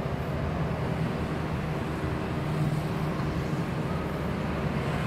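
A motor running steadily with a low, constant-pitched hum.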